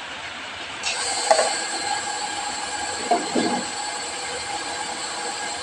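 Small electric mini blender switching on about a second in and running steadily with a high whine, grinding a spice paste.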